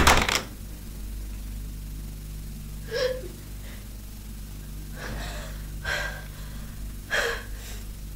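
A woman gasping and sobbing in short, ragged breaths, four or five times, over a steady low hum. A brief clatter right at the start, as a handheld button device drops onto a wooden floor.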